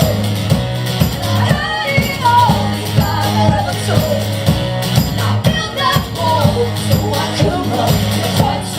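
A song performed live: sung vocals over a band with sustained low notes and a steady, regular beat.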